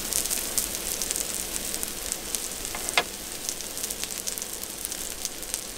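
Food sizzling and spitting on a hot iron griddle plate, a steady crackling hiss with a sharper pop about three seconds in.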